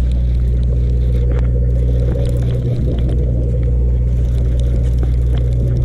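Sportfishing boat's engine running steadily, a low drone, with scattered light clicks and scrapes over it.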